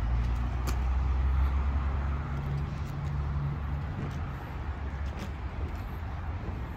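Supercharged 6.2-litre V8 of a Ram TRX with a Starwood Customs exhaust on a remote cold start. It jumps to a loud fast idle at the opening, then settles to a lower, steady idle about four seconds in.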